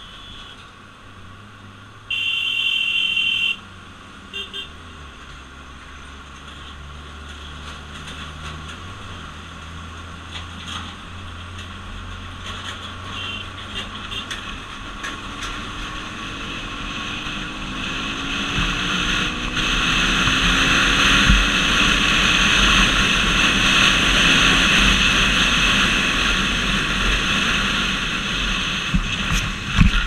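Motorcycle riding through traffic: a vehicle horn sounds loud and steady for about a second and a half near the start. After that, engine and wind noise build steadily as the bike gathers speed, loudest past the middle.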